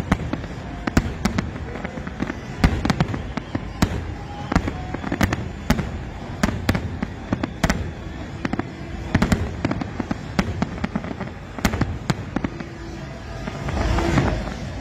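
Aerial fireworks bursting in quick, irregular succession: sharp bangs and crackles, several a second. Near the end the bangs thin out under a swell of louder noise.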